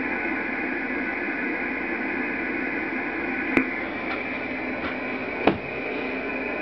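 G3020 software-defined radio's speaker hissing with steady 20-metre band noise in upper sideband, heard through the 2.4 kHz receive filter with no station transmitting. A few sharp clicks stand out, the loudest about five and a half seconds in.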